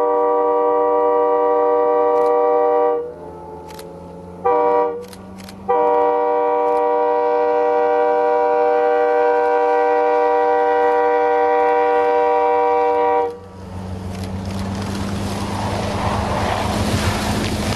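Locomotive air horn sounding a chord: a long blast ending about three seconds in, a short blast, then a long blast held about eight seconds, the long–short–long end of a grade-crossing warning. Then the horn stops and the train's rumble and hiss swell as it comes close and passes.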